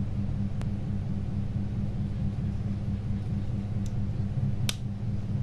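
A steady low background hum, with a few small sharp clicks of Nokia N71 housing and keypad parts being handled and fitted together; the loudest click comes near the end.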